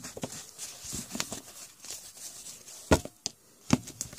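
A stack of 1989 Topps football cards being handled and squared up by hand, with soft cardboard rustling and, about three seconds in, a few sharp taps.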